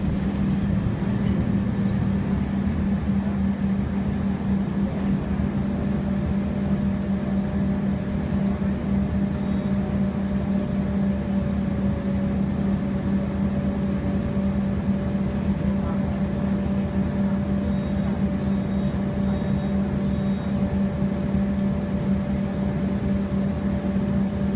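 Cabin noise inside a MAN Lion's City city bus: a steady low engine hum, with a thin steady whine joining about six seconds in.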